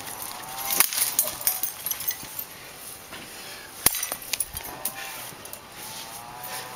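Metal stepladder knocking and clanking as a wrestler climbs it, with two sharp knocks about a second in and about four seconds in. Several drawn-out calls that rise and fall in pitch sound behind it.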